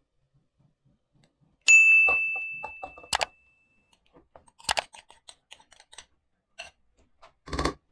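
A glass bowl knocks against the rim of a stainless steel pot with a ringing ding that fades over about two seconds, then a sharper clink. This is followed by light clicks and scrapes of a fork pushing marinated chicken pieces out of the bowl into the pot, and a brief scuffing noise near the end.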